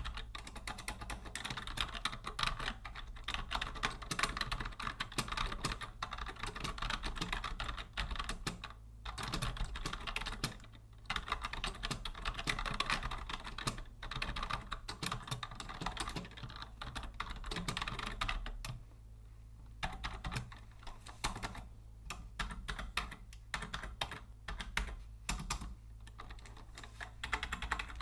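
Steady typing on a vintage Logitech Deluxe 104 wired keyboard: a dense, fast stream of key clicks, broken by a few short pauses, the longest about two-thirds of the way in.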